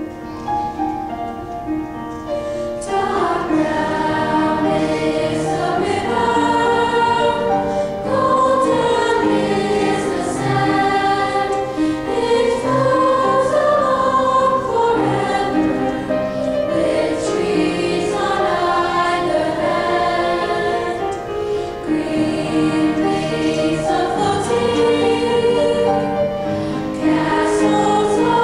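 Middle-school choir singing in parts, the massed voices growing fuller about three seconds in.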